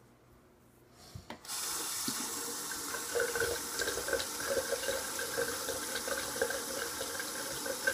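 Bathroom sink tap turned on about a second and a half in, water running steadily into the basin.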